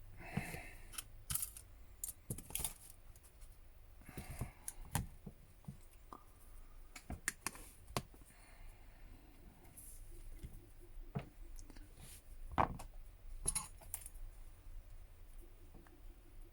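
Small tools and phone parts being handled during a smartphone teardown: scattered, irregular light clicks and taps, with a sharper click about three-quarters of the way through.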